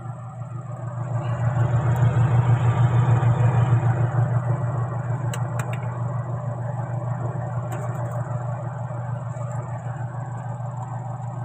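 A motor running with a steady low hum that swells about a second in, peaks over the next few seconds, then settles to a steady level.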